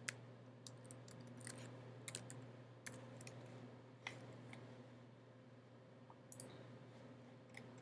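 Faint, irregular keystrokes on a computer keyboard while a line of R code is typed, the clicks closer together in the first half and sparser later, over a steady low hum.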